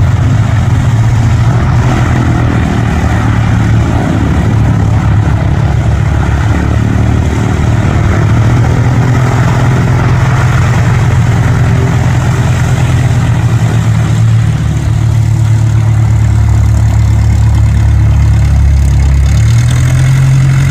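Cessna light aircraft's piston engine and propeller running steadily on the ground, close by, with a low, even drone. Near the end the engine speed rises a little.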